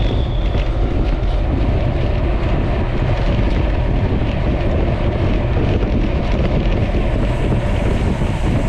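Steady wind buffeting the microphone: a loud, constant rumble with no breaks.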